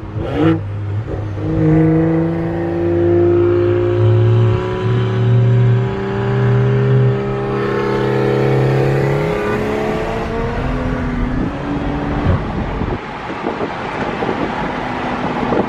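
Stage 2-tuned BMW 340i's turbocharged 3.0-litre straight-six accelerating under load, its engine note climbing steadily for about eight seconds, then falling away about ten seconds in as the pull ends and the car rolls on.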